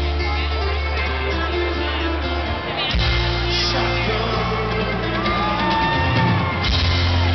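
Rock band playing live: electric guitar, bass guitar and drums with a lead vocal, heard from the audience. The bass line holds long notes and moves to a new note twice.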